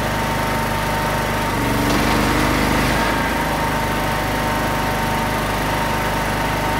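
Butt-fusion machine's electric facer spinning, its blades shaving the ends of the clamped plastic pipe: a steady mechanical drone whose pitch shifts briefly about two seconds in.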